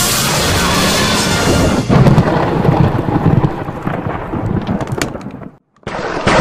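Loud thunder-like rumbling and crackling, growing heavier about two seconds in. It fades, cuts out sharply for a moment and comes back as a second loud burst right at the end: the lightning-strike and time-travel blast.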